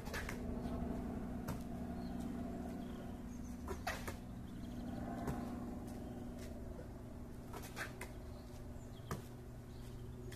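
A basketball thumping on an asphalt court and being caught: a handful of short, sharp knocks spread a second or more apart, some in quick pairs, over a steady low hum.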